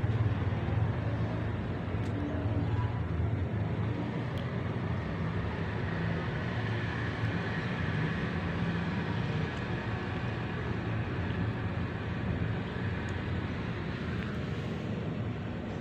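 Steady low rumbling background noise with a low hum throughout, without clear individual events.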